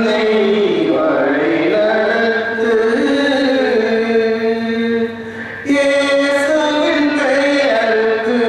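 Liturgical chanting sung in long held notes that slide between pitches, with a short pause about five seconds in before the next phrase.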